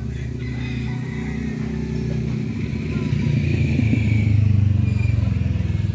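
A motor vehicle's engine running steadily, growing louder about halfway through.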